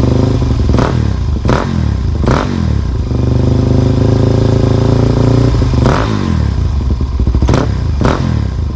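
Motorcycle engine running steadily, with about six brief revs: three in the first two and a half seconds and three more from about six seconds in.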